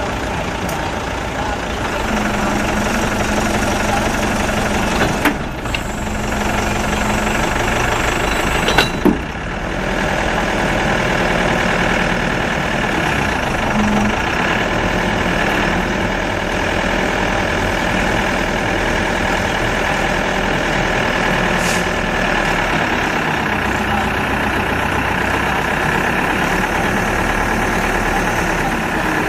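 Caterpillar 426C backhoe loader's diesel engine running steadily at idle, with two brief knocks about five and nine seconds in.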